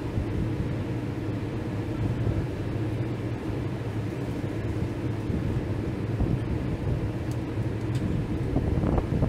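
Steady low mechanical drone of running heavy machinery, with a couple of sharper knocks near the end.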